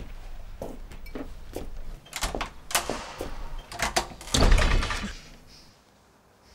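A run of short knocks and footfalls, then a louder door thud about four and a half seconds in.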